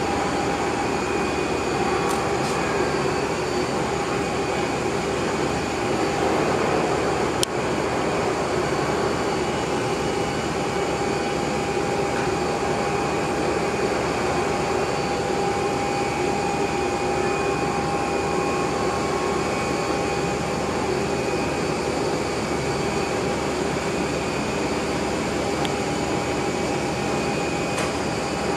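Airliner jet engines running steadily: an even rushing noise with a constant whine on top. A single sharp click about seven seconds in.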